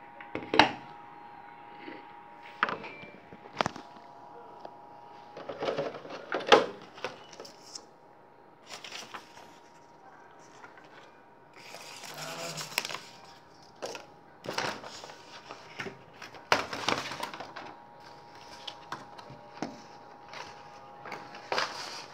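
Stiff clear plastic clamshell packaging and paper being handled: irregular sharp cracks and clicks of the plastic with short rustles of paper and cardboard.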